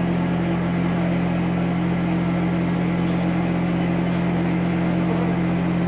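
Vehicle engine idling steadily, a constant low drone with no change in speed.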